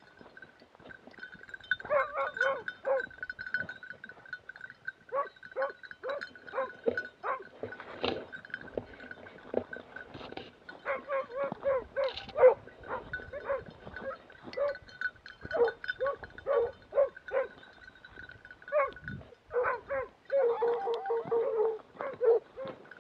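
Hunting dog barking in short, repeated yelps that come in clusters, growing denser near the end. A thin, steady high tone sounds behind the barks for most of the time, then stops.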